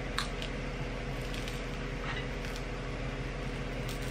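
Steady low hum of room tone, with a few faint, short clicks scattered through it.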